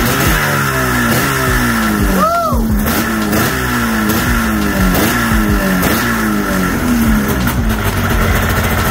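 2002 Arctic Cat ZR 600 EFI snowmobile's two-stroke twin running on its first start after a new OEM stator went in, a sign that spark is restored. Its note keeps sliding down and repeating, with a short rev about two seconds in.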